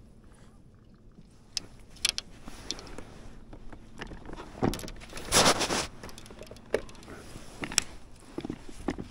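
Irregular clicks, knocks and rattles of gear being handled in a small boat, with a louder rustling burst lasting about half a second a little past the middle.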